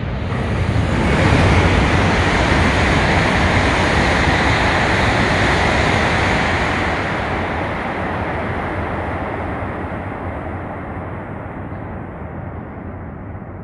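E7 series Shinkansen passing through a station at high speed without stopping: a loud rush of air and wheel noise that builds in about the first second, holds for about six seconds, then slowly fades as the train recedes.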